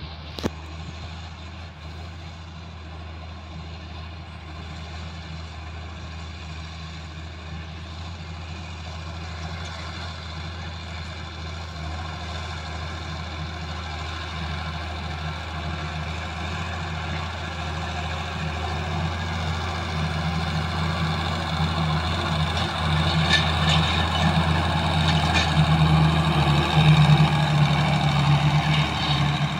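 Belarus MTZ-1221 tractor's six-cylinder diesel engine running steadily under load while pulling a KShP-6 combined tillage implement through ploughed soil. It grows steadily louder as the tractor approaches, with a few light clicks near the end.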